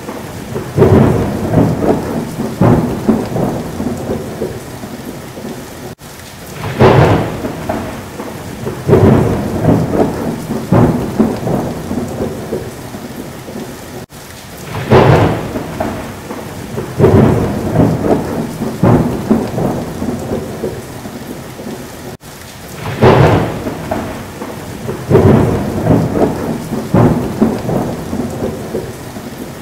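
Thunderstorm with steady rain and rolling thunder, a loud clap opening each cycle. The same roughly eight-second stretch repeats again and again, as a looped sound effect does.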